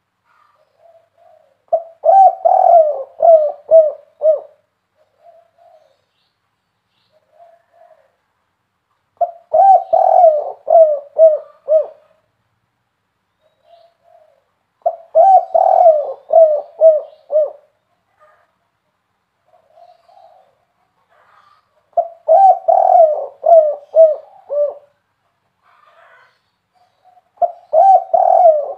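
Spotted dove cooing: a phrase of five or six loud rolling coos about every six or seven seconds, five phrases in all, with soft short notes between them.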